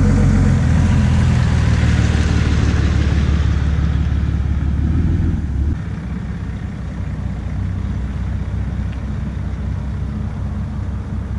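Ram pickup's 6.7-litre Cummins turbo-diesel running, a steady low drone. Just before six seconds it drops abruptly to a quieter, lower drone that carries on.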